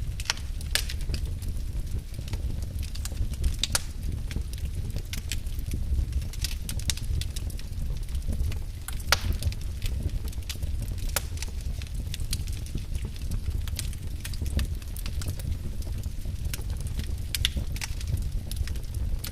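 Wood fire crackling in a fireplace: irregular sharp pops and snaps, a few at a time, over a steady low rumble of the burning fire.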